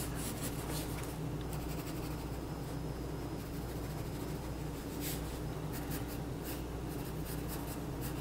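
Pencil sketching on paper: short, quick strokes scratching at an uneven pace, busier in the second half, over a steady low hum.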